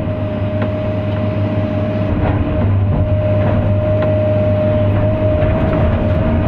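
Excavator's diesel engine running steadily, heard from inside the operator's cab, with a steady whine over it and scattered short knocks as the bucket works through the grass.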